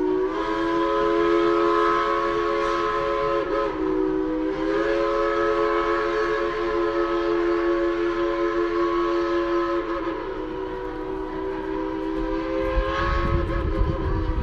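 Steam locomotive chime whistle blowing long, steady blasts of several tones at once, broken briefly about four seconds in. A low rumble comes in near the end.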